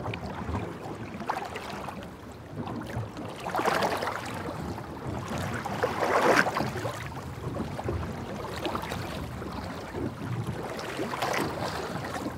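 Sea water washing and sloshing, swelling louder about 4 and 6 seconds in.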